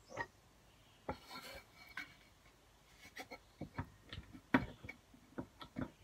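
Irregular small knocks and clicks from a hand handling and tapping a pine board, coming more often in the second half, with the sharpest knock about four and a half seconds in.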